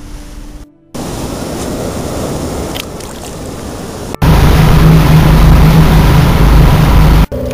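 Rushing wind and water noise on a boat, with a much louder stretch from about four seconds in that carries a steady engine-like drone. Each part cuts off abruptly.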